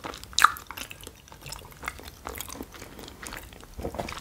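A person chewing and eating, with soft wet mouth sounds and small clicks, and one sharper click about half a second in.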